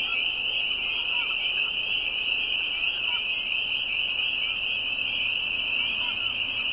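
A dense chorus of spring peepers, many frogs peeping at once in a continuous high-pitched wall of sound, with faint lower calls scattered through it.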